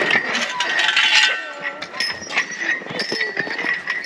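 Sled dogs in a dog yard whining and yelping in short gliding calls, with many short clicks and rattles throughout.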